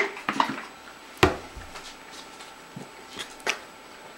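A few sharp clicks and knocks of a plate and cutlery being handled at a table, the loudest a dull knock about a second in.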